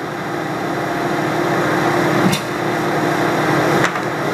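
Metal lathe running steadily, its spindle turning with a steady hum and a faint tone. Two sharp clicks about two seconds in and again near the end.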